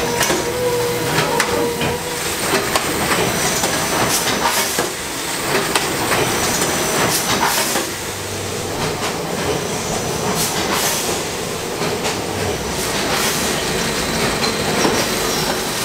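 Automatic coffee-bag packaging machine and conveyor running: a steady mechanical clatter and hiss with repeated sharp clicks, and a steady hum tone in the first couple of seconds.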